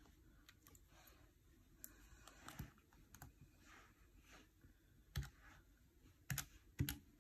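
Plastic keys of a desk calculator pressed with long fingernails: a few faint, sparse clicks, then sharper clicks from about five seconds in as a sum is keyed in.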